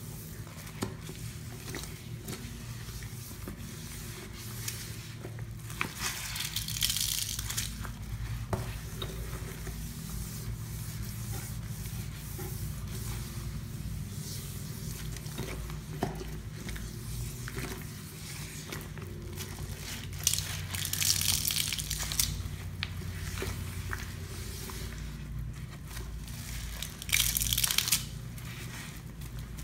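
Sponge in a rubber-gloved hand scrubbing a sink through a thick wet paste of Comet cleanser and Pine-Sol: continuous squishy, gritty rubbing, with three louder, hissing bursts of brisker scrubbing.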